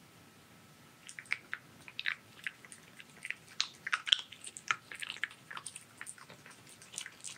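Silver fox chewing pieces of dried pumpkin: a quick, irregular run of crunchy clicks that begins about a second in.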